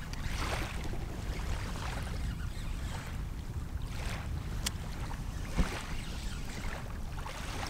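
Wind rumbling on the microphone, with small waves washing onto the shore every couple of seconds. A single thump a little past halfway is the loudest moment.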